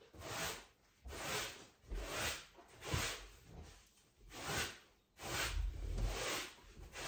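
Long-handled broom sweeping a woven rug in short repeated strokes, about one a second.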